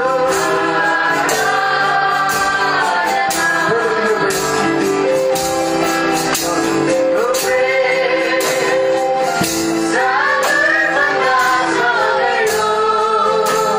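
Music: a song with singing over a steady percussion beat.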